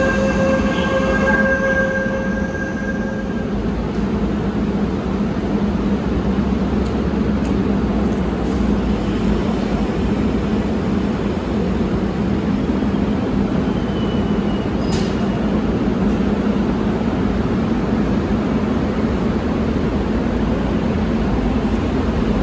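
Seoul Subway Line 1 electric commuter train running at the platform, a steady rumble of wheels and motors. A steady tone sounds for the first three seconds or so.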